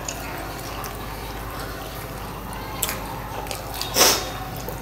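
Close-miked eating sounds: soft wet chewing and small mouth clicks as steamed momos are eaten, with one loud wet smack about four seconds in.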